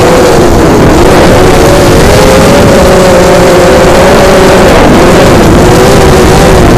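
Brushless motors and propellers of a 5-inch FPV racing quadcopter (Cobra 2204 2300kv motors on 5045 bullnose props), heard from its onboard camera: a loud buzzing whine whose pitch rises and falls with the throttle, over a heavy low rumble.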